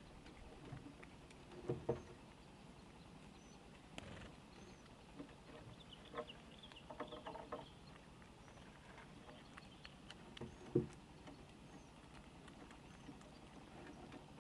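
Squirrels feeding on nuts and corn on a wooden board: scattered soft clicks and knocks of nibbling and handling food, loudest a pair of knocks about two seconds in and a single knock near eleven seconds, with a run of quick clicks in the middle.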